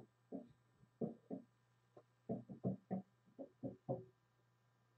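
Soft, uneven taps and knocks, about a dozen in five seconds, from trading cards being handled in a rigid plastic top loader.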